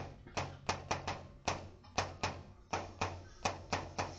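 Chalk clicking against a blackboard while words are written: an irregular run of sharp clicks, about three or four a second.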